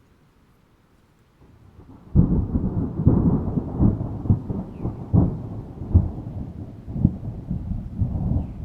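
Thunder: a faint rumble builds about a second and a half in, then a sudden loud crack about two seconds in rolls on as a long low rumble broken by repeated sharper cracks.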